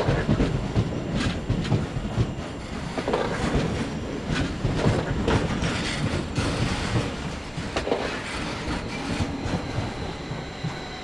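Train passing on the rails, its wheels clattering in irregular knocks over rail joints and points, growing quieter near the end.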